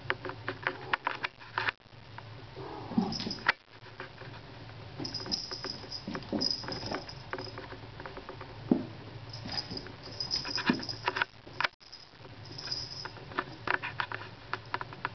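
A Papillon puppy's claws clicking and pattering on a hardwood floor as it moves about, with one short, louder call that slides down in pitch about three seconds in.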